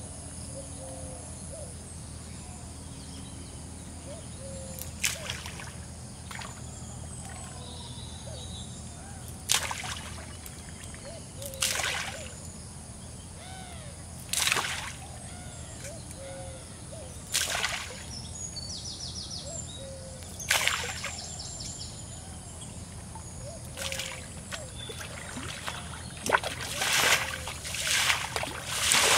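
Pond water being scooped up and flung out, each throw a short splash. The throws come every few seconds at first, then in quick succession near the end.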